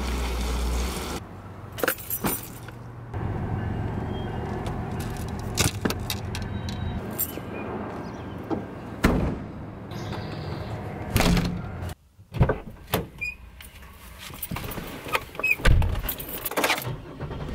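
Car sounds in a run of short cuts: a low engine hum, broken by repeated clicks and knocks from a car's trunk and doors, with keys jangling.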